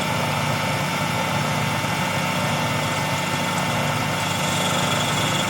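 Milling machine spindle running steadily with a four-flute carbide end mill, a constant machine hum with a steady whine, as the cutter is brought down to touch off on the sheet-metal part.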